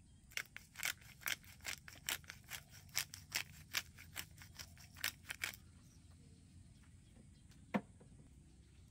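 Hand pepper mill grinding black pepper, a quick run of sharp, gritty clicks about three or four a second for some five seconds. A single louder click follows near the end.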